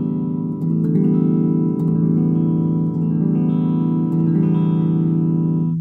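Electric guitar strumming a chord through an Ampeg V4 tube amp head and speaker cabinet, with the amp's ultra-high switch engaged. The chord is struck again about once a second and cuts off suddenly at the very end.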